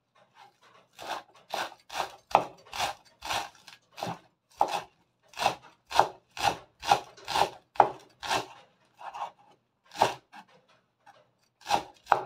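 Kitchen knife chopping garlic chives on a wooden cutting board: steady strokes of the blade through the stalks onto the board, about two a second. They start about a second in, with a brief pause near the end.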